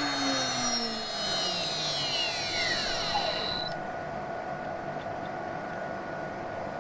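High-speed CNC router spindle winding down after switch-off, its whine falling steadily in pitch. About two-thirds of the way through the high whine cuts off suddenly, leaving a steady hum.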